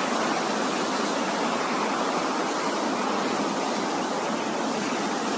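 Floodwater rushing and flowing past at a steady level.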